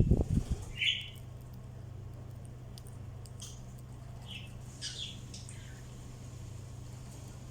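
Birds giving short, scattered chirps and squawks: a call about a second in, then several more in a cluster midway. A few low thumps come at the very start, over a steady low hum.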